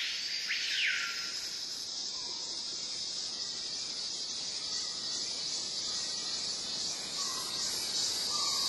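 Insects buzzing steadily at a high pitch, with a bird giving two swooping calls that rise and fall in the first second and a few faint short calls later.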